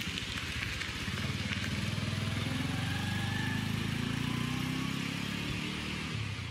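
Small single-cylinder Honda motorcycle engine pulling away, getting louder about a second in as it rides out onto the road, then fading as it goes off.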